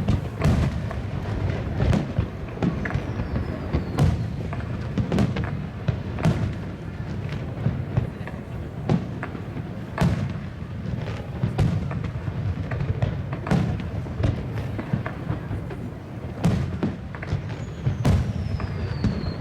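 Fireworks display: aerial shells bursting in an irregular run of sharp bangs, one to two a second, each echoing, over a low rumble. Two falling whistles are heard, one a few seconds in and one near the end.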